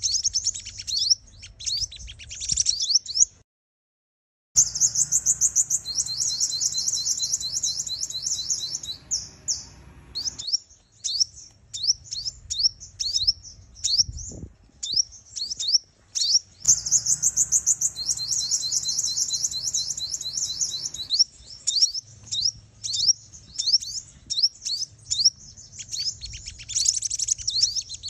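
Female sunbird calls: rapid, high-pitched chirps and fast trills in a sequence that repeats, played as a decoy to provoke and lure males. The calls drop out for about a second around three seconds in.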